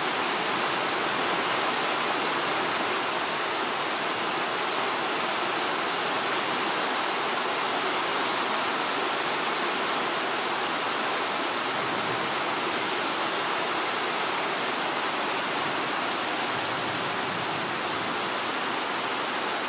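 Heavy thunderstorm downpour: rain pouring down steadily.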